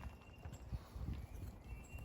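Soft, irregular knocks and rustling from a Swiss Army knife and a piece of fatwood being handled and set in position, just before the back of the saw starts scraping the wood.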